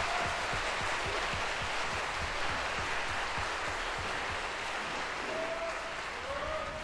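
Audience applauding steadily, with a few shouts from about five seconds in.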